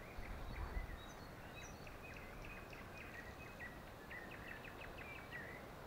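Songbirds singing: a string of short, high chirps and whistles, with a quick run of repeated notes about four to five seconds in, over a faint low rumble.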